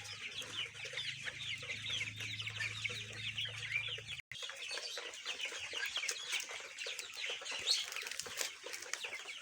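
A shed full of 30-day-old colour bird chickens calling all at once: a dense, continuous chatter of many short, high, falling peeps and clucks. A low steady hum runs beneath for the first four seconds or so, then cuts off suddenly.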